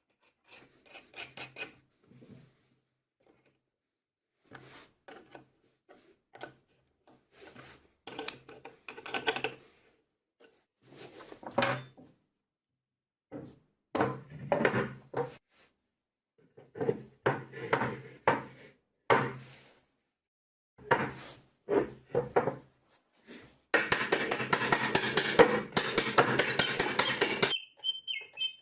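Workshop tool work on the jig: a series of short, separate scraping or grinding bursts, then a longer continuous one of about four seconds near the end.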